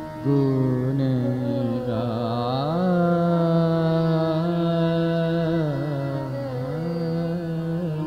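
Indian devotional kirtan music: a sustained melody moving in held notes and steps, with some wavering ornaments, and no sung words.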